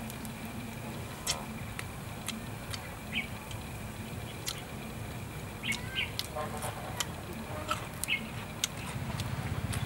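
Outdoor ambience: a steady low hum and a faint, steady high tone, with a few short bird chirps and scattered small clicks.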